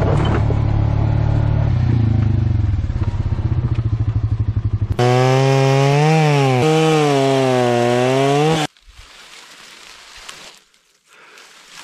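A small engine running, steady at first with a pulsing beat, then louder with its pitch rising and falling for a few seconds before it cuts off suddenly; faint clattering follows.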